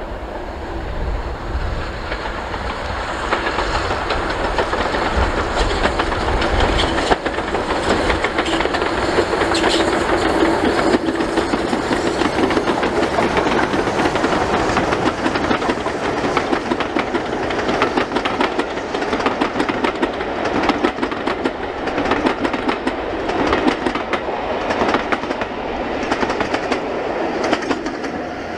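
Steam locomotive hauling a train of passenger coaches past: a loud, steady running noise with a rapid, rhythmic clatter that grows stronger in the second half.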